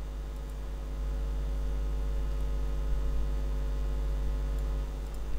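Steady low electrical hum with a faint hiss: the background noise of the recording microphone.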